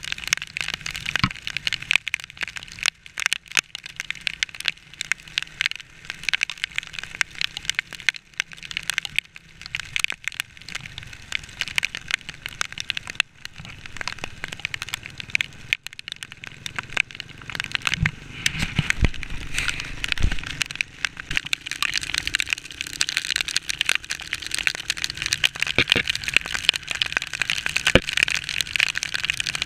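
Heavy rain, with raindrops hitting the camera in a dense, continuous crackle of sharp clicks, over wind and road noise from a motorcycle riding through it.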